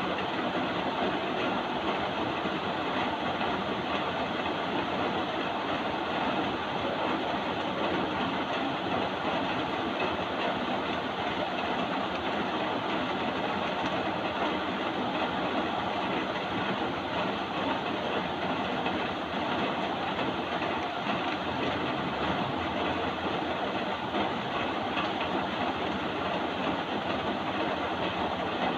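Steady, unbroken rain noise.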